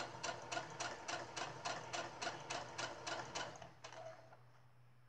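Domestic electric sewing machine stitching slowly, its needle mechanism ticking evenly at about three to four stitches a second over a low motor hum. The stitching stops a little before four seconds in.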